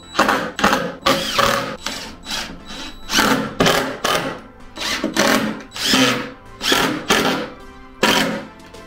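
Cordless drill-driver running in short bursts, driving the screws that fasten a plate amplifier into a subwoofer cabinet, over background music.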